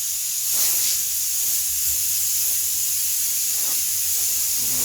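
Steady hiss of sandpaper water sanding the cured clear coat on a pickup box, over a low steady hum.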